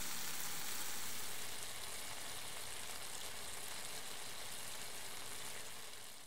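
Beef rendang, its sauce cooked down nearly dry, sizzling in a pot: a steady hiss that fades out near the end.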